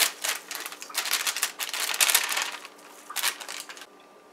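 Plastic inner bag of a boxed cake mix crinkling in a run of irregular bursts as it is shaken and squeezed to empty the powder into a steel bowl.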